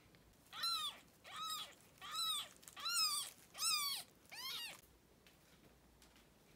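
Kitten meowing six times in quick succession, each a short high-pitched meow that rises and falls in pitch.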